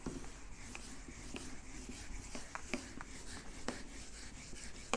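Whiteboard eraser wiping a whiteboard clean: faint rubbing with scattered light ticks as the eraser sweeps across the board.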